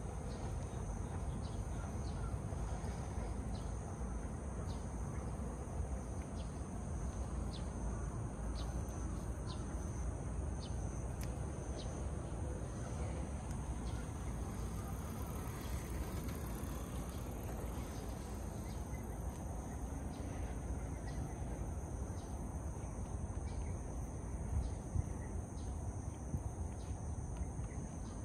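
A cat licking its fur close up: a run of small, irregular tongue clicks, about one or two a second, that thin out for a few seconds in the middle and then return. Behind it a steady high insect drone and a low outdoor rumble.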